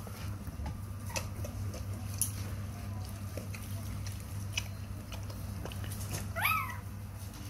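A puppy whimpers once, a short high whine rising then falling in pitch, about six and a half seconds in. Scattered soft clicks and ticks come before it, over a steady low hum.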